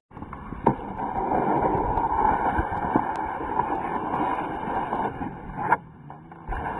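A snowboard sliding along a terrain-park box: a steady scraping hiss from the board on the box's top. It opens with a knock as the board lands on the box, under a second in, and ends with another knock as the board comes off near the end.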